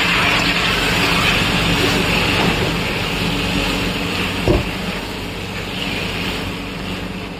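Chickpeas sizzling in a hot metal kadai after a splash of water, the sizzle slowly dying down over a steady low hum. A single short knock about four and a half seconds in.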